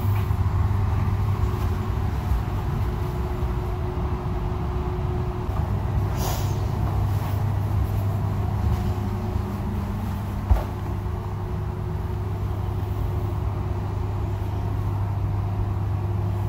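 Steady low hum inside a double-deck sleeper train car, with a short hiss about six seconds in and a single sharp click about ten and a half seconds in.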